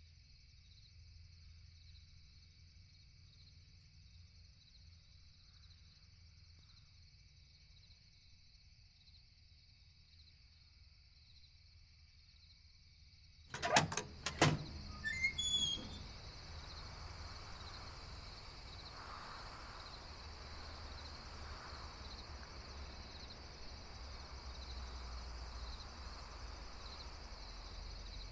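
Faint night crickets, then about halfway through a few sharp latch clicks and a wooden shutter creaking open with a falling squeak. After that, louder outdoor night ambience with crickets and a low rumble.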